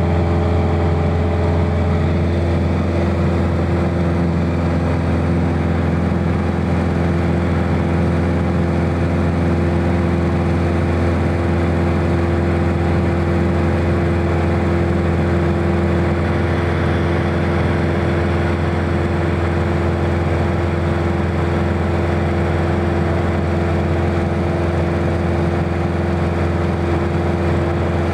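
Piper Warrior's four-cylinder Lycoming O-320 engine and propeller in a steady drone, heard from inside the cabin while climbing out after takeoff. The pitch shifts slightly about two seconds in, then holds.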